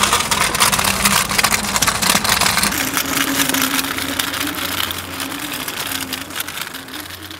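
Kick scooter's small hard wheels rolling fast over paving stones, a continuous rattling clatter that eases off near the end.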